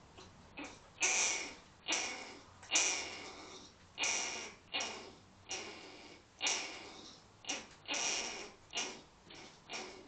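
Ground cuscus (Phalanger gymnotis) giving a long series of harsh, breathy hiss-like calls, about one or two a second, each starting suddenly and fading quickly.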